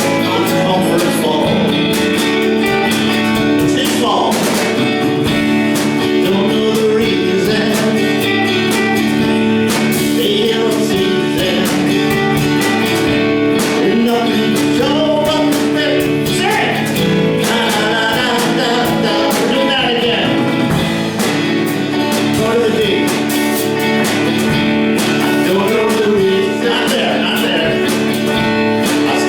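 Live band playing, with electric guitar, drums and a singing voice.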